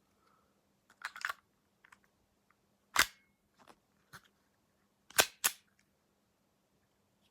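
Small WE Colt .25 Junior airsoft pistol being fired: three sharp shots, one about three seconds in and then two in quick succession near five seconds, after a quicker cluster of clicks about a second in and with faint handling ticks between.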